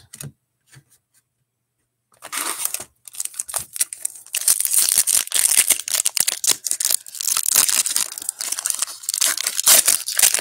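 A foil Panini NBA Hoops trading-card pack being torn open and its wrapper crinkled by hand. The crackling starts about two seconds in, after a short quiet spell, and goes on as a dense run of sharp crinkles.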